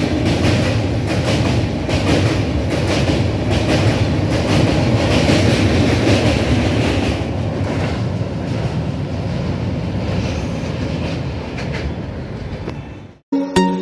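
LHB passenger coaches of an express train running through a station at speed, wheels clattering rhythmically over the rail joints. The clatter fades away after the last coach, the power car, goes by. The sound cuts out near the end and music begins.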